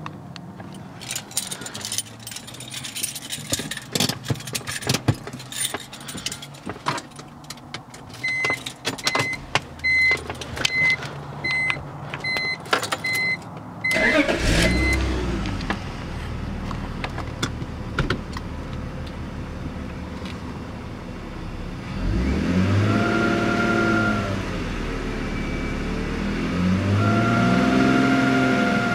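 A car's warning chime beeps about a dozen times, then the engine starts at about halfway and idles. It is revved twice in neutral, and with each rev a steady high-pitched whine comes in that does not change pitch with engine speed, the strange noise that is being recorded.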